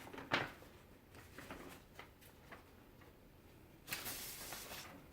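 Faint handling of papers taken from an accessory pouch: a sharp click shortly after the start, a few small ticks, then a rustle of paper lasting about a second, about four seconds in.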